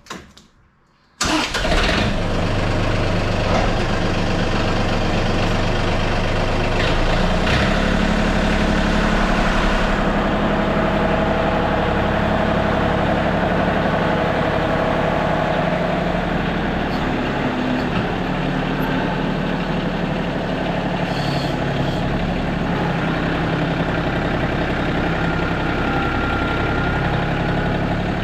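An engine running steadily, cutting in abruptly about a second in after near silence; its pitch steps up about seven seconds in and then holds.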